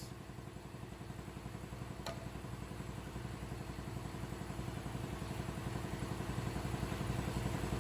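A machine running steadily with a fast, even pulse, slowly growing louder, with a single sharp click about two seconds in.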